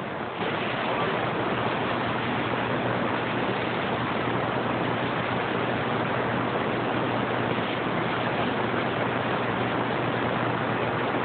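Steady static hiss from a CB radio's speaker on channel 6 between transmissions, with a faint low hum under it. It steps up slightly just after the start.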